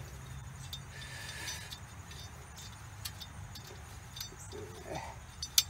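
Scattered light metal clicks and taps from prying off the small retaining tabs that hold a wheel hub, over a steady low background rumble; the sharpest click comes near the end.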